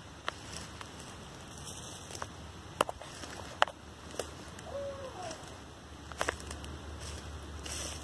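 Footsteps on dry leaf litter, with scattered sharp snaps and crackles of twigs. About five seconds in, a faint short owl hoot that rises and falls in pitch.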